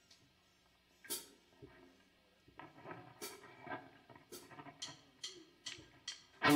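Rock band about to start a song: a few faint guitar notes, then drumsticks clicked in a steady count-in of about two and a half ticks a second. The full band with electric guitar comes in loudly right at the end.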